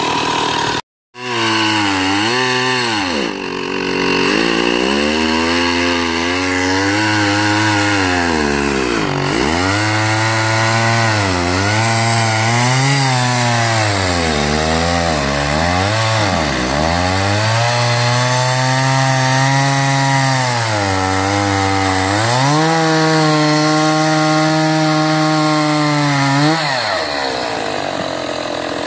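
Gas chainsaw running with its pitch rising and falling as the throttle is worked, dipping now and then. It revs up and holds higher for a few seconds, then drops back down about two seconds before the end. A brief break in the sound comes about a second in.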